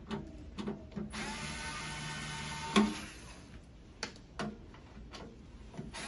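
A small electric screwdriver turning the screws of a griddle's sheet-metal side panel. It gives short whirs, then a steady whine for about two seconds that ends in a sharp click, followed by a few more brief whirs and clicks.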